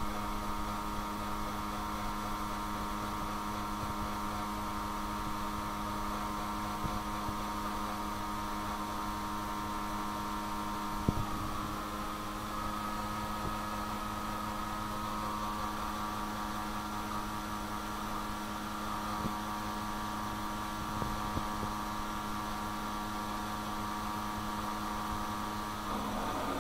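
Steady machine hum of an automatic-transmission fluid-exchange machine pumping fluid while the Toyota Yaris's engine idles, partway through a flush with fresh fluid going in and old fluid coming out. A faint tick about eleven seconds in.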